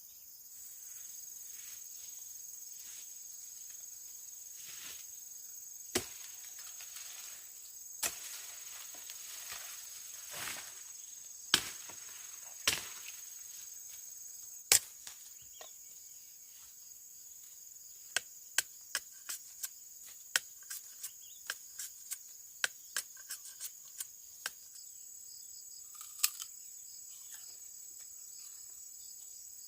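Steady high-pitched drone of insects with a series of sharp knocks over it: a few loud, spaced strikes in the first half, then a quicker run of lighter knocks at about two a second.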